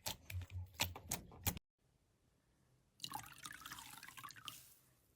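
Slime being handled: a quick run of sharp crackling clicks that cuts off suddenly about a second and a half in, then after a short silence a wet squishing with dripping sounds that fades away.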